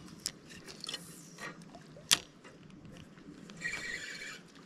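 Fishing rod and reel being handled during a cast: light clicks, one sharp click about two seconds in, then a short whir near the end as the reel is wound.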